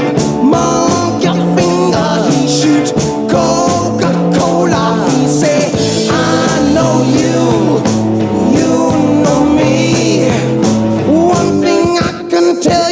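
Rock music with guitar and a singing voice over a stepping bass line.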